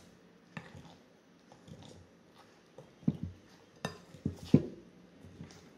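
Metal wire potato masher working a thick, wet ground-liver and almond mixture in a glass mixing bowl: soft squelching with a few scattered knocks and clinks against the bowl, the loudest about four and a half seconds in.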